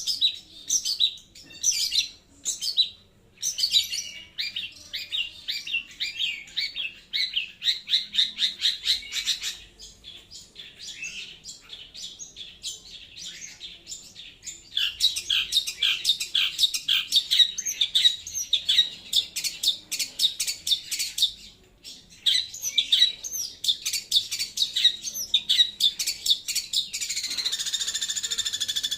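Long-tailed shrike (cendet) singing loud, fast chattering phrases of rapid, sharp high notes in bursts with short pauses, softer for a few seconds about a third of the way in. A steadier, hissing sound comes in near the end.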